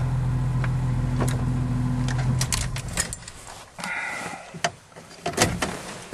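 Steady drone from the Jeep YJ plow truck, heard from inside the cab, that cuts off about two and a half seconds in. Scattered clicks and knocks from the cab follow.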